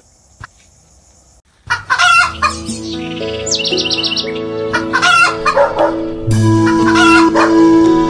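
After a short near-quiet gap, chickens clucking and crowing repeatedly over background music.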